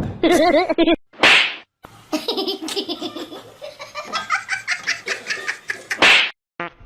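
Laughter: a wavering pitched note, then a long run of quick rhythmic laughing pulses, with two sharp breathy bursts, about a second in and near the end.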